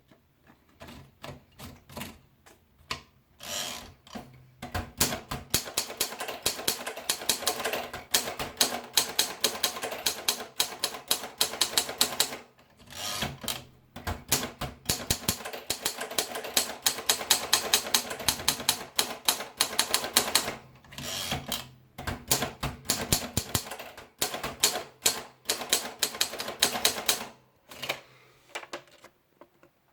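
Kappel typewriter being typed on: fast runs of sharp key strikes, broken by a few short pauses, with scattered single strokes at the start and near the end.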